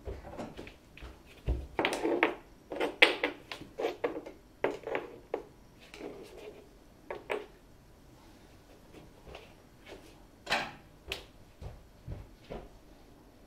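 Small wooden blocks knocked and set down on a tiled floor with a stick: a run of sharp clicks and knocks, dense for the first several seconds, then a few scattered ones later.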